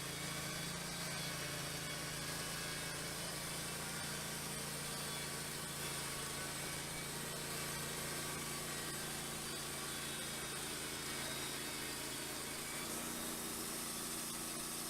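Wood-Mizer portable band sawmill's engine running steadily while it cuts a flitch off a pine log, its tone shifting slightly near the end.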